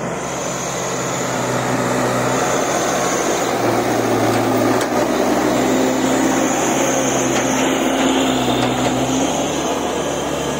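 Case 770EX backhoe loader's diesel engine running steadily as the machine drives and pushes soil with its front bucket. The engine drone shifts slightly in pitch and grows a little louder over the first few seconds.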